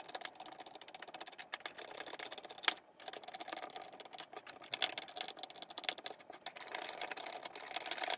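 A hand screwdriver driving screws into the plastic rear grille of a Honeywell HT-900 fan: dense, irregular clicking and rattling of plastic, with a short lull about three seconds in.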